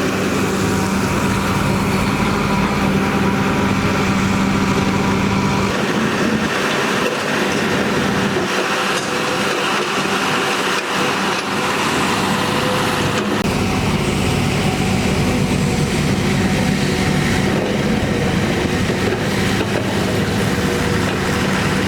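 Diesel engines of heavy earthmoving machinery running steadily, with a low engine hum. The sound shifts about six seconds in and changes again a little past the middle.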